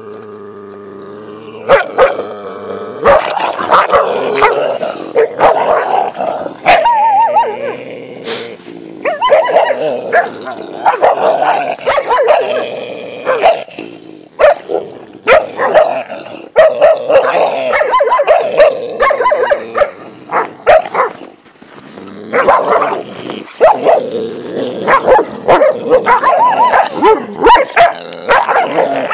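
Alabai (Central Asian Shepherd) dogs growling and barking as they scuffle, in short loud outbursts that break off and start again.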